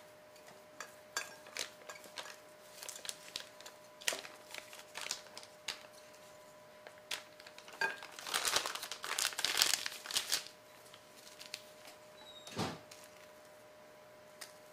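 Clear plastic crinkling and rustling as it is handled, densest for about two seconds past the middle, among scattered light clicks of kitchen utensils and a single knock near the end.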